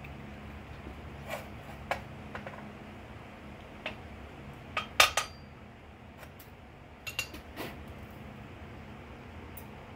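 Scattered light metallic clinks as a blacksmith's hammer and a small steel piece are picked up and set down on the anvil, with no rhythm of forging blows; the loudest cluster comes about five seconds in. A steady low hum from the coal forge's air blower runs underneath.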